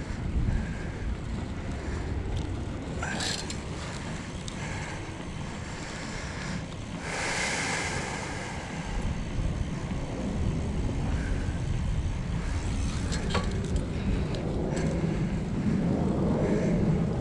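Wind buffeting an action camera's microphone during a bicycle ride: a steady low rumble, with a louder hissing rush of about two seconds around seven seconds in.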